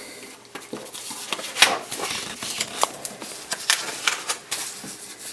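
Irregular rustling and light clicks of photos and papers being handled and shifted about.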